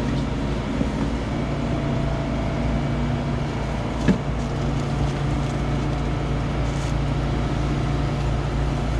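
Steady drone of a fishing boat's engine running, with one sharp knock about four seconds in.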